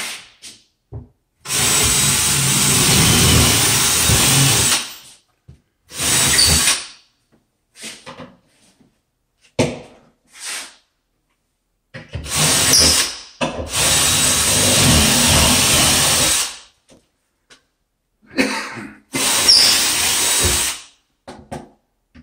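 Ryobi cordless drill running in bursts of a few seconds against the wall, the longest about three to four seconds. Short knocks and pauses fall between the bursts.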